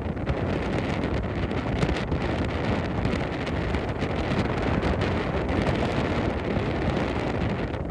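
Gale-force gusting wind buffeting the microphone: a steady, dense low rumble that swells and dips slightly without a break.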